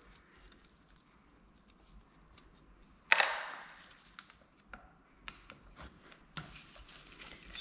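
Small clicks and ticks of a screwdriver working the screws out of the top of an aluminium Solex Kadron carburettor, with one sharp clack that rings briefly about three seconds in.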